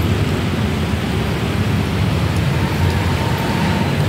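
Steady road traffic noise: a continuous low rumble of passing cars.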